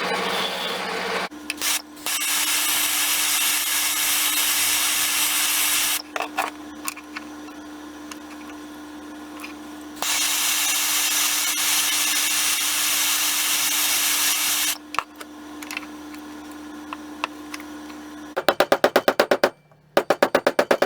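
A power tool working wood in bursts of several seconds: a loud hiss over a steady hum. Between the bursts there are quieter gaps with clicks and handling. Near the end comes a fast run of sharp, evenly spaced knocks.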